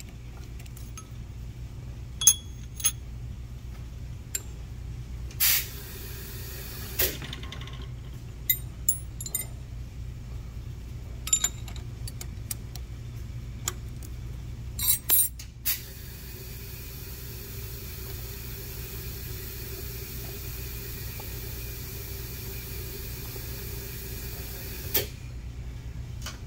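Machine shop reaming of cylinder-head valve guide bores: a steady low motor hum under a string of sharp metal clinks and taps as the reamer and tooling are handled in the cast-iron head. A little past halfway a steadier whirring with a faint whine comes in, then stops with a click near the end.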